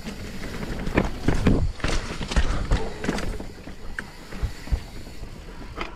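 Mountain bike rattling over rough, rocky trail: irregular knocks and thumps from the tyres and frame hitting rocks and roots, over a low rumble. The knocking is densest and loudest between about one and three seconds in, then thins out.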